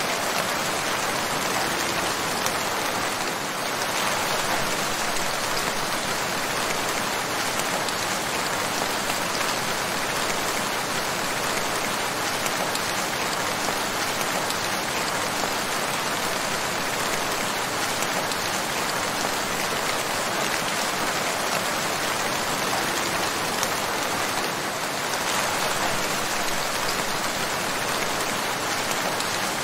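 Steady rain falling: an even, unbroken hiss of many drops, with no thunder.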